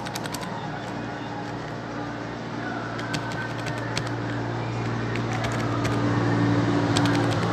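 Steady low mechanical hum, slowly growing louder, with a few faint clicks.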